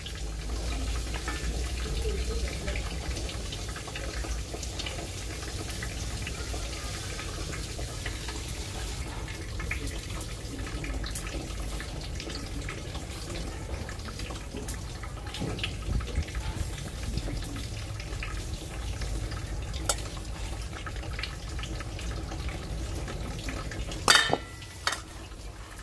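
Knife working pickled cucumbers on a stainless steel tray, with scattered faint clicks of the blade on the metal over a steady background noise. About 24 seconds in, the knife clatters sharply against a steel bowl.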